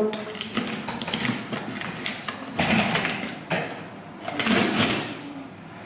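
Packing tape on a cardboard box being slit with a small cutter and peeled off: a run of short scratchy rips, with two longer tearing sounds about two and a half and four and a half seconds in.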